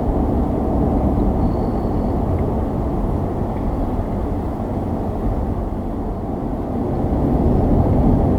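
Steady road and engine rumble heard inside a pickup truck's cab while driving at highway speed.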